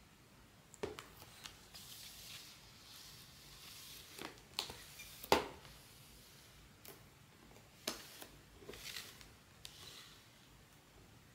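Plastic blind-bag packaging being handled: quiet crinkling rustles broken by a handful of sharp clicks, the loudest about five seconds in.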